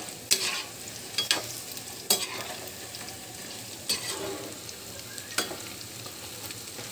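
Batter-coated chicken pieces deep-frying in hot oil in a kadhai, a steady sizzle, while a spatula turns them, knocking against the pan several times at uneven intervals.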